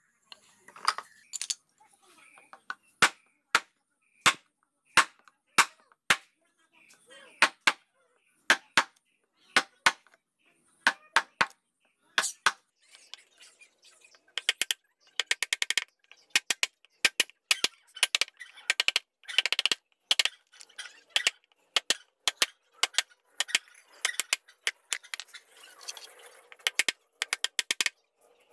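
Sharp taps of a mallet driving a wood-carving chisel into a block of wood, cutting a flower pattern. The taps come about one or two a second at first, then faster and closer together from about halfway.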